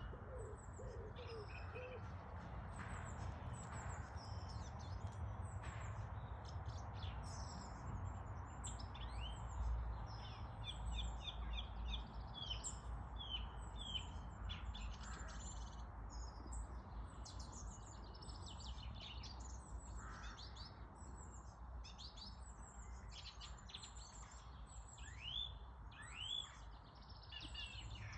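Several small songbirds singing together in spring song: a dense chorus of quick high chirps, trills and rising whistles. A few low cooing notes sound right at the start, and a steady low rumble runs underneath.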